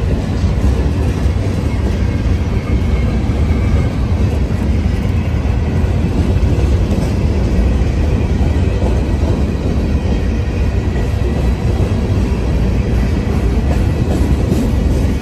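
Union Pacific manifest freight train's covered hopper cars rolling past close by: a steady, loud rumble of steel wheels on the rails, with faint scattered clicks over it.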